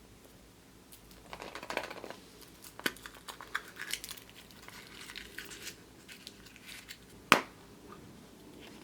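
Kinder Surprise egg being unwrapped by hand: the foil wrapper crinkles and crackles in irregular spells, with a single sharp click about seven seconds in.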